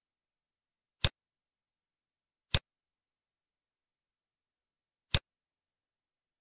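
Three sharp computer mouse clicks, the first about a second in, the second a second and a half later, the third near the end.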